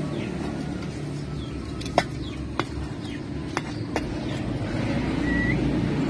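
Four sharp metallic clicks, spread over a couple of seconds, as the homemade muffler's welded pipe and perforated inner tube are handled, over a steady low mechanical rumble that grows a little louder. A brief high chirp comes about five seconds in.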